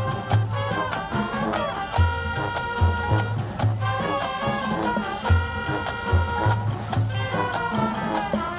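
High school marching band playing a brass-led swing number with a Latin feel: held horn chords and melody over a steady, repeating pulse of low bass notes.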